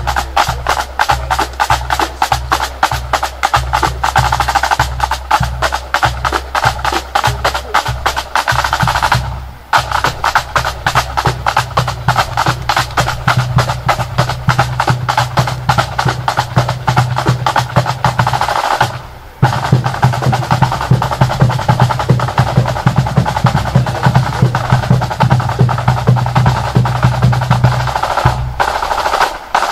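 Pipe band drum corps playing: rapid snare drum rolls and rudiments over steady bass drum beats. The drumming comes in three phrases, with short breaks about nine and nineteen seconds in, and stops just before the end.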